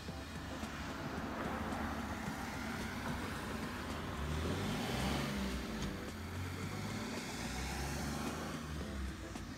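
A car passing by outside: its tyre and engine noise grows, peaks about halfway through, then fades away.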